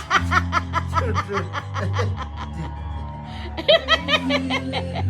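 Background music with steady bass notes under quick runs of laughing 'ha-ha-ha' sounds, about five or six a second, which pause briefly and then start again.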